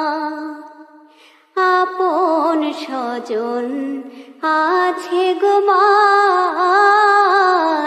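A solo voice singing a Bangla gojol, an Islamic devotional song. A long held note fades out about a second in, and after a short pause new phrases begin, ornamented with wavering, sliding pitch.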